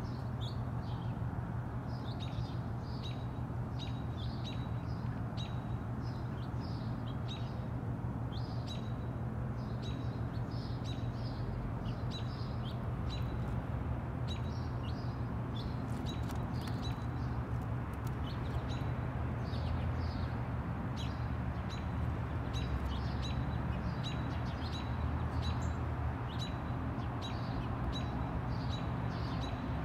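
Small songbirds chirping over and over, short high chirps about once or twice a second, over a steady low rumble of background noise.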